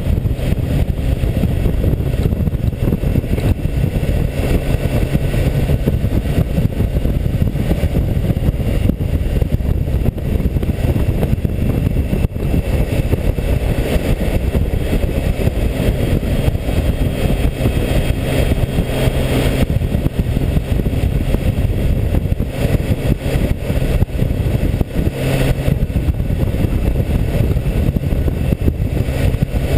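Heavy wind noise on the microphone of a tank-mounted action camera, over a BMW K1600GTL's inline-six engine running steadily as the motorcycle rides along.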